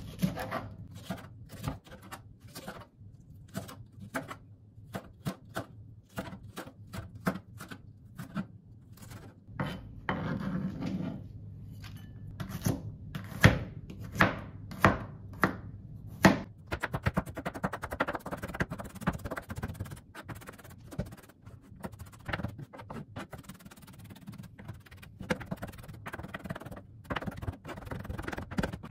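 Irregular wooden knocks and taps, the loudest few near the middle, then a quick run of rapid taps in the second half.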